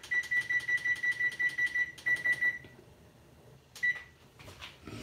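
Electronic beeping from a kitchen appliance's control panel: a rapid run of short, identical high beeps for about two and a half seconds with a brief break in the middle, then one more short beep about a second later.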